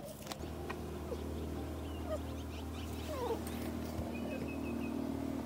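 A dog whining softly in a few short, faint whimpers over a steady low hum.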